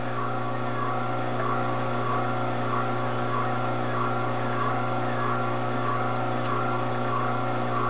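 Omega masticating juicer's motor running steadily as its auger grinds watercress, a steady hum with a faint regular pulse about twice a second.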